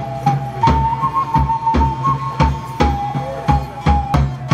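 Live band music: a flute-like wind instrument plays a melody of long held notes over a steady low note and an even drum beat of about three strokes a second.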